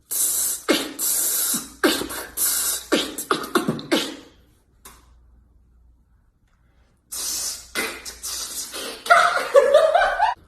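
A person's wheezing, breathy laughter in rapid gasping bursts. It stops for about three seconds in the middle, then resumes and turns back into voiced laughing near the end.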